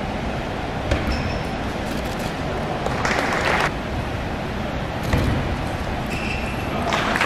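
Table tennis ball hit back and forth in a rally: a few sharp taps off bat and table over a steady hall hum. Short bursts of noise come in the middle and again near the end.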